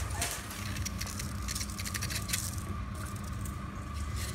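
A steady low hum with a thin high tone, and scattered faint clicks and rattles from handling.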